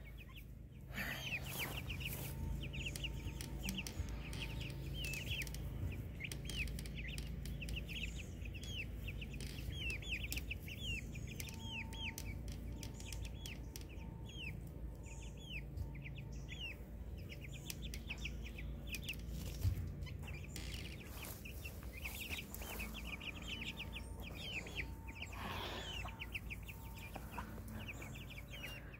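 A flock of young chickens peeping continuously: a busy stream of short, high, falling chirps, several a second.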